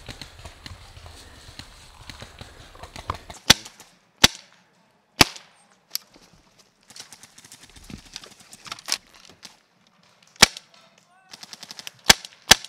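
Paintball markers firing: sharp single pops, about seven in all, coming irregularly, with two in quick succession near the end. A low rumbling noise runs for the first three seconds or so, before the first shot.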